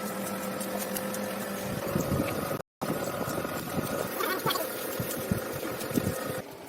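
A power tool's electric motor running steadily, with scattered taps and knocks over it; the sound drops out completely for a moment a little under halfway through.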